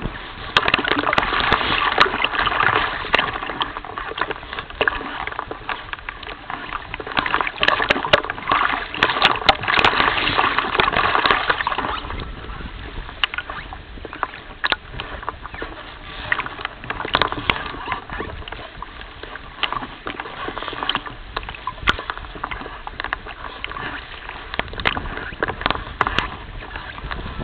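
Small waves lapping and splashing against a floating reed nest, a dense crackly wash of water sound with wind on the microphone. It is louder for the first twelve seconds or so, then eases to softer, patchier lapping.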